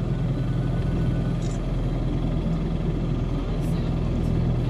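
A sailboat's engine running steadily, a low even hum, with the boat motoring before its sails are raised.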